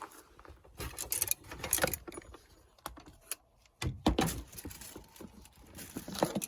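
Irregular clinks, rattles and knocks of small hard objects being handled, with a louder knock about four seconds in.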